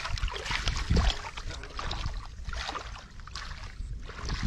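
Hands groping and sloshing through shallow muddy water, irregular splashing and swishing, with a heavier slosh about a second in.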